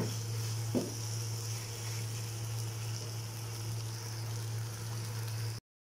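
Onion, tomato and spice masala sizzling in a frying pan, a steady hiss with a low hum underneath. It cuts off abruptly just before the end.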